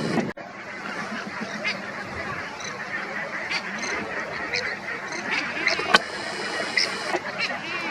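A flock of migratory waterfowl calling: many scattered, overlapping short quacks and honks of ducks and geese over a steady rushing noise, with a single sharp click about six seconds in.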